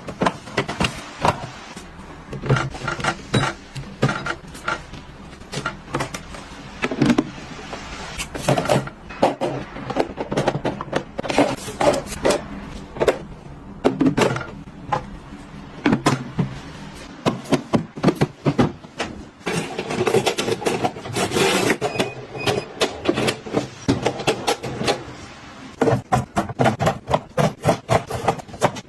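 Kitchen items being handled and put away: a quick, irregular run of clicks, knocks and rubbing, with a denser stretch of scraping about two-thirds of the way through.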